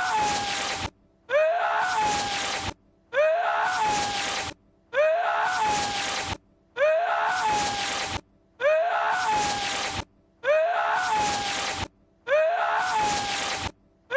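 The same short Lord Voldemort voice clip, a sneeze-like outburst, looped about every two seconds, eight times over. Each repeat is a quick rising intake and then a long breathy, hissing cry that cuts off suddenly before the next.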